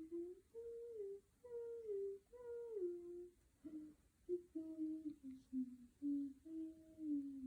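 A voice humming a short tune: a string of held notes that step down in a falling phrase, repeated three times, then a run of shorter notes moving up and down.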